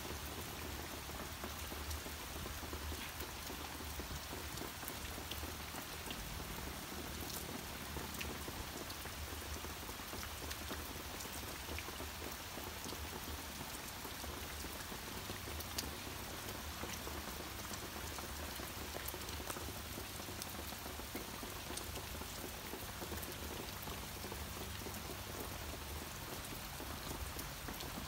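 Heavy rain falling steadily: an even hiss of rain with scattered sharp ticks of single drops striking close by.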